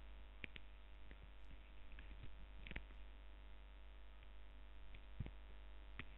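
Faint steady electrical mains hum with a few soft clicks scattered through it.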